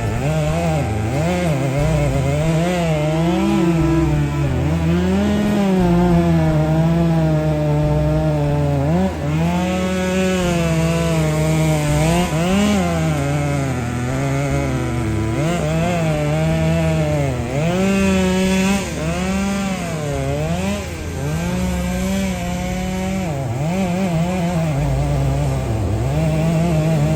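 Two-stroke chainsaw running under load while cutting pine, its engine pitch dipping and rising again every second or two as the chain bites and frees in the wood.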